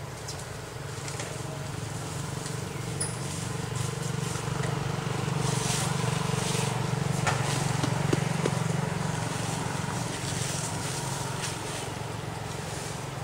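Low, steady motor-vehicle engine hum that grows louder towards the middle and fades again, like a vehicle passing by.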